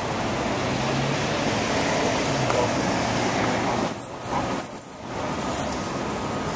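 Steady noise of city traffic, an even rumble and hiss, which dips briefly twice about four and five seconds in.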